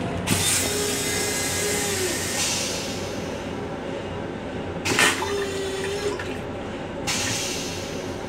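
Stainless steel toilet on a Long Island Rail Road M7 railcar flushing after its push button is pressed. Water rushes into the bowl just after the press, and about five seconds in a sudden loud whoosh comes as the bowl empties. A further rush of water follows about seven seconds in.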